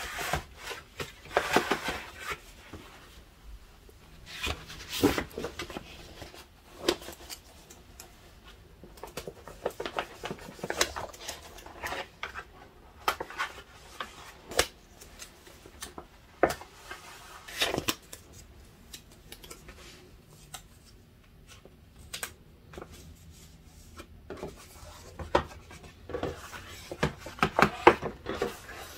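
Kraft paper mailers and envelopes being handled and laid out on a desk: intermittent paper rustling and crinkling with light taps on the desktop, busier near the end.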